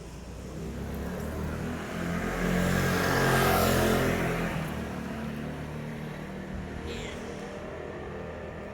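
A motor vehicle passing by: its engine and road noise swell to a peak a few seconds in, then fade away.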